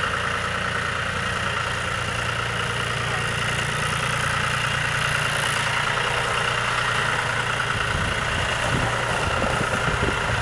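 John Deere 5055D tractor's three-cylinder diesel engine running steadily at low speed as the tractor drives slowly; near the end the low engine rumble turns more uneven.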